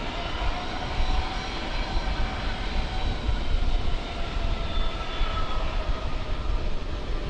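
Boeing 767-400ER's twin General Electric CF6 turbofans at takeoff thrust as the jet rolls away down the runway: a steady, deep rumble with faint whining tones above it.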